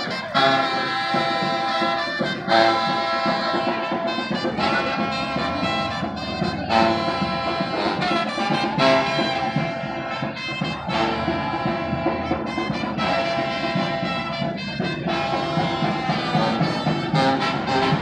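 Marching brass band playing in the street, with horns over a sousaphone bass line.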